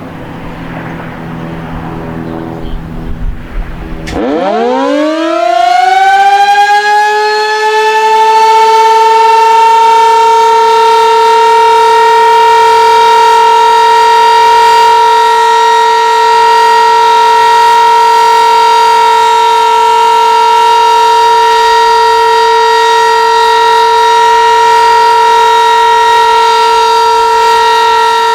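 A DC-powered Sentry 15V2T-B dual-tone tornado siren winds up about four seconds in, after some low rumbling noise. Its pitch climbs quickly, then holds as a loud, steady two-tone alert chord.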